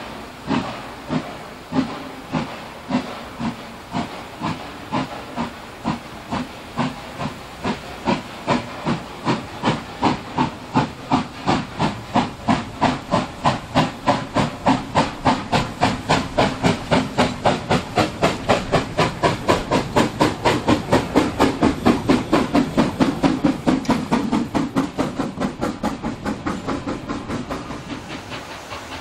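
Class 99.32 narrow-gauge 2-8-2 steam locomotive pulling away with a long train, its exhaust chuffs speeding up from about one a second to three or four a second as it draws near and passes. Near the end the chuffs fade while the carriages roll by.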